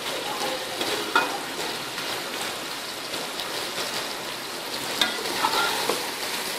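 Beef, tomato and onion masala sizzling in hot ghee in an aluminium pot while a metal spatula stirs and scrapes against the pot, with clinks about a second in and again between five and six seconds in.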